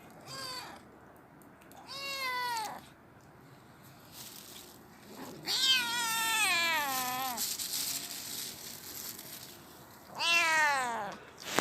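A kitten meowing four times. The calls are short and fall in pitch, except the third, which is long and wavering, about two seconds.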